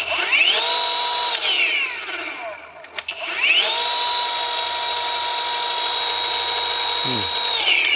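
A Rupes cordless random-orbital polisher run free in the air twice: each time its whine rises as the pad spins up, holds steady, then falls away as it spins down. The first run lasts about a second and a half, the second about four seconds.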